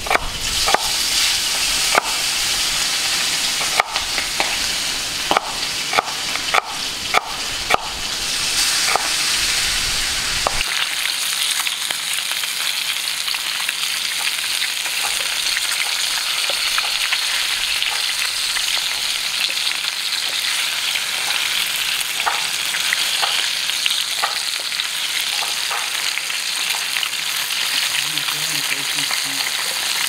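Knife chopping onion on a wooden cutting board, a sharp chop about once a second, for the first ten seconds or so. Then fish steaks sizzling as they shallow-fry in oil in a pan, stirred with a wooden spatula.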